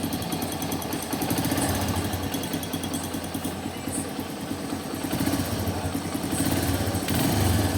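TVS Metro Plus motorcycle's single-cylinder four-stroke engine idling with a steady, fast metallic knocking from the top end, like iron striking iron. The mechanic traces the noise to worn rocker arm pins.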